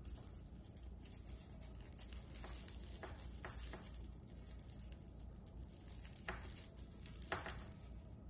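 Tangled metal necklace chains clinking and rattling softly as they are worked apart by hand, with a few scattered sharper clicks.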